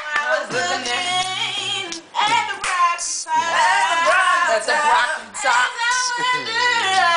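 Young voices singing a cappella, with long held notes that slide in pitch and a brief break about two seconds in.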